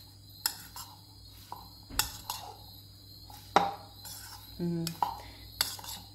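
Utensil clicking and scraping against a plastic bowl as a chopped salad is tossed: sharp, irregular clicks, a few a second.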